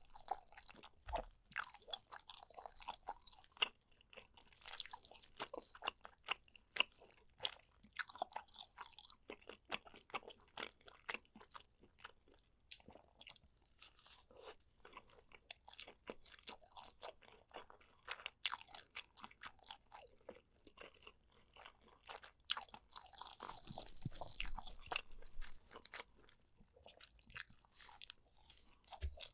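Close-miked eating of braised pork ribs: chewing and biting the meat off the bone, a dense, irregular run of short clicks and crunchy mouth sounds.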